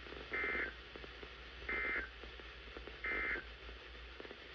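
Three short bursts of warbling digital data tones from NOAA Weather Radio's SAME (Specific Area Message Encoding) system, about a second and a half apart, over faint radio hiss. This is the end-of-message code that closes the Required Weekly Test broadcast.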